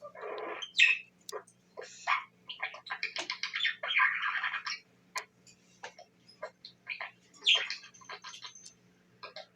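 Pet budgerigar chirping and chattering in short bursts, with small clicks in between. The chatter is thickest about three to four seconds in.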